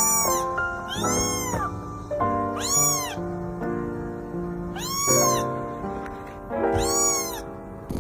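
A cat meowing five times, each meow a short rise and fall in pitch, over background music.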